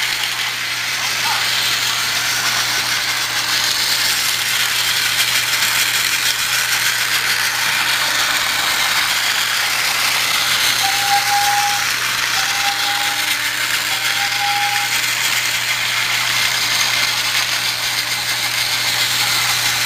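Battery-powered Thomas Trackmaster toy trains running on plastic track: a steady motor whir with rattling wheels and track. Three short tones sound in a row just after halfway.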